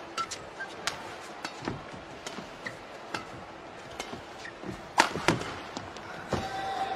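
Badminton rally: racket strokes cracking on the shuttlecock and court shoes squeaking, with the loudest stroke about five seconds in. Crowd noise swells near the end.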